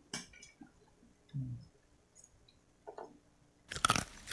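Eating at the table: scattered clicks of spoons and forks on plates and a glass dish, with soft chewing. About four seconds in comes a louder, noisy scraping rustle as a spoonful of rice is taken close to the microphone.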